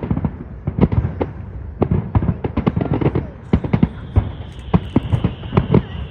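Aerial fireworks bursting in a rapid, irregular string of sharp bangs, several a second. About two-thirds in, a thin high steady tone joins and runs on beneath them.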